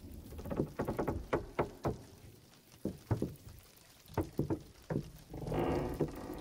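A run of irregular light knocks and taps, then about five seconds in a louder sustained rushing sound.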